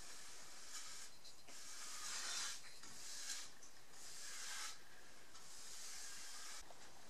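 Paintbrush stroking water-based polyurethane onto cedar boards: a soft rubbing swish with each pass of the bristles, stroke after stroke at an uneven pace of about one a second.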